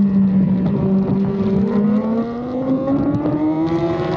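2016 BMW S1000RR superbike's inline-four engine running hard at race pace. Its pitch holds steady for about two seconds, then rises over the next second and a half as the bike accelerates.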